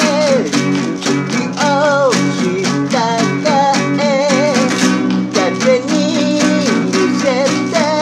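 A man singing a Japanese song to his own steady, quick strumming on a small nylon-string classical guitar with a capo.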